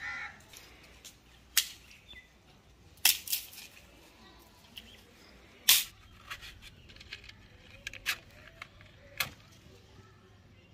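Dry firewood knocking and snapping as it is broken and laid into a clay stove: about six sharp, separate knocks, the loudest about halfway through.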